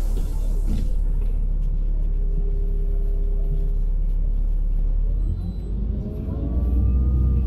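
Inside a LiAZ-5292.65 city bus under way: the diesel drivetrain runs with a steady low rumble. After about five seconds a whine rises in pitch as the bus gathers speed.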